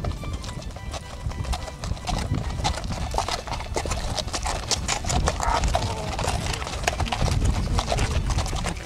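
Several horses walking past on a dirt track, their hooves clip-clopping in an irregular stream of knocks.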